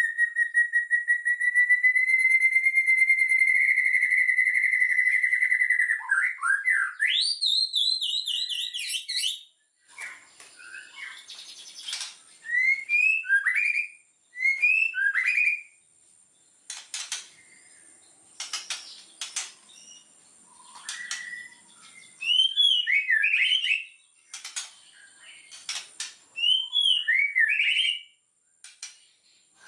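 White-rumped shama (murai batu) in full song: a long, wavering high whistle for about six seconds, then swooping notes, then short rising-and-falling whistled phrases mixed with sharp clicking calls and brief pauses.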